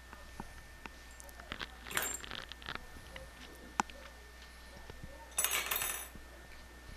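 Small metal plumbing parts clinking and rattling: scattered clicks, a jangle about two seconds in, a sharp click near four seconds, and a longer metallic jingle near the end.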